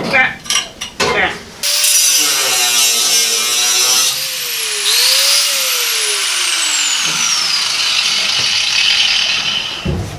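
A cordless angle grinder with a cut-off wheel cuts through the car's steel floor cross-members. It starts a couple of seconds in after a few short knocks, and it runs with a whine that sags and falls in pitch as the wheel is pressed into the metal. It stops near the end.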